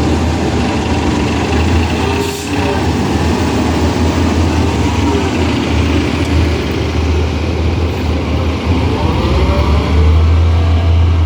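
City bus engine and transmission heard from inside the cabin during a ride: a steady low drone with whining tones that rise and fall as the bus changes speed. A short hiss comes about two seconds in.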